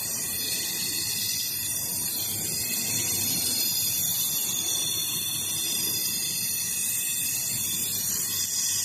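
Automated laser welding machine at work: a steady hiss.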